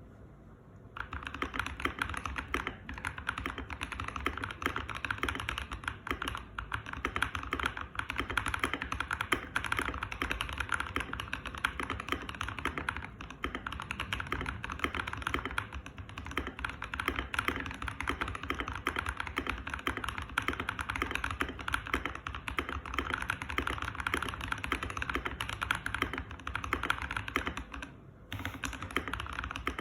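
Fast, continuous typing on a Keychron K2 V2 mechanical keyboard with Boba U4T tactile switches and Akko Samurai keycaps. The typing starts about a second in and runs as a rapid stream of keystrokes, with a brief pause near the end.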